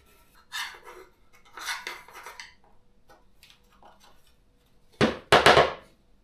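Metal clinking and clattering from a loose Oregon saw chain being handled, with a louder rattle about five seconds in.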